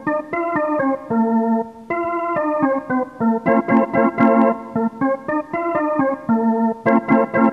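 Instrumental music: a melody of quick, short notes on a keyboard-like instrument, with clean sustained tones between them.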